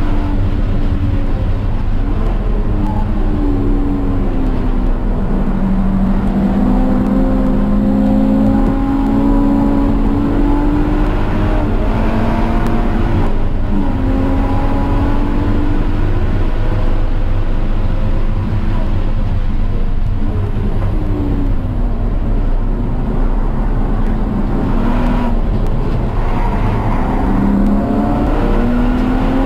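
Car engine lapping a race track, its pitch sinking as it slows and climbing again as it accelerates, with a break near the middle where the revs drop. A steady low rumble runs under it.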